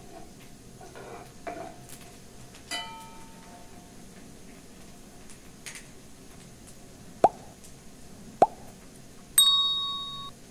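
A metal spoon clinking and tapping against a cooking pan: scattered light clicks, one ringing clink, then two sharp taps. Near the end comes the loudest sound, a bright bell-like ding that rings for about a second.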